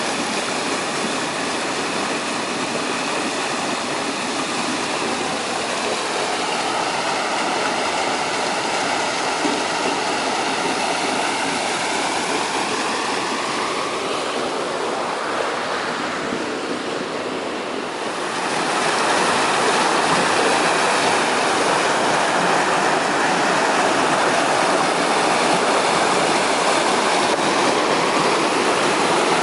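River waterfall rushing steadily. About eighteen seconds in, the rush grows louder and fuller.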